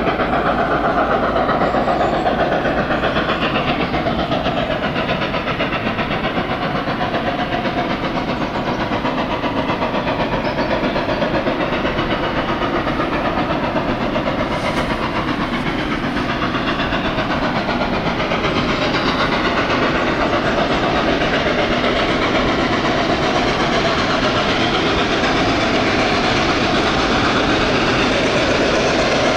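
A train running, a loud steady rumble and hiss of wheels on rails that stays even throughout.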